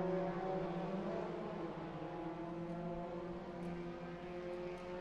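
Kyosho dNaNo 1/32-scale micro RC cars racing, their small electric motors giving a steady whine of several pitches together.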